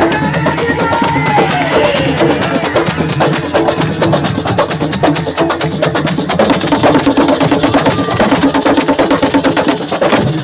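Live assiko band music: fast, dense hand drumming with sharp wood-block-like clicks, going on without a break.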